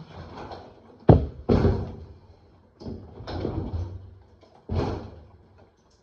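A washing machine being shifted by hand, its cabinet knocking and scraping on the floor in about four heavy thuds, the first of them the loudest.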